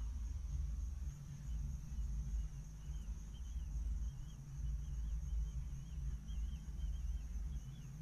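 Low, uneven rumble of heavy mining machinery running at a distance. A bird twitters faintly from about three seconds in over a steady high insect hum.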